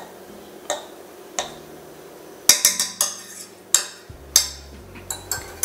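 Metal fork fluffing cooked couscous in a saucepan, scraping and clinking against the pot: a couple of single strokes, then a quick run of scrapes about halfway through.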